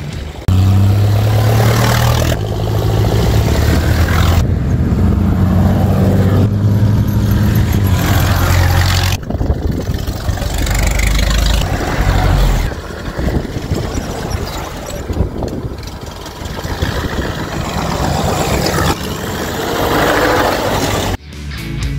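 Engines of vintage baquet roadsters running as the cars drive past one after another, in a string of short cuts. A steady low engine note dominates the first several seconds; after that the sound turns rougher and more uneven.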